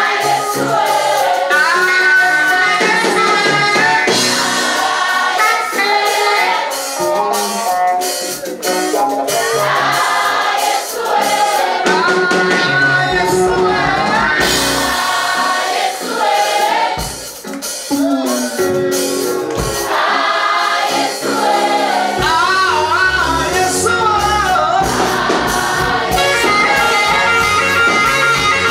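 Choir singing a gospel song with instrumental accompaniment.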